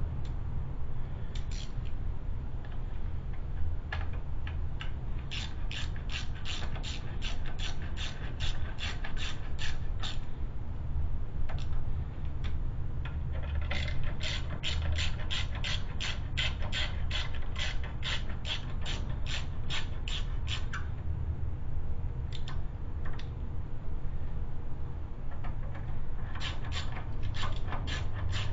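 Hand socket ratchet clicking as bolts are run in on a new front wheel hub bearing assembly, about four clicks a second, in three runs with short pauses. A steady low hum sits underneath.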